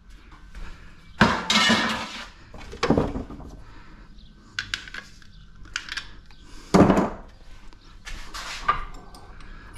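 Scrap metal clanking and rattling as pieces are handled and set down, in several separate clatters with small clinks between; the loudest comes about seven seconds in.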